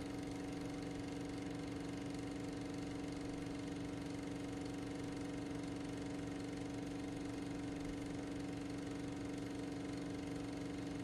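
Steady electronic buzzing hum at one low pitch with overtones, holding unchanged and fairly faint.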